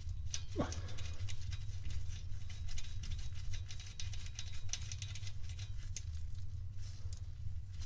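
Light, irregular metal clicks and taps as the speedometer pinion locking plate and bolt are fitted by hand on a Datsun 240z transmission, over a steady low hum. There is a short falling squeak about half a second in.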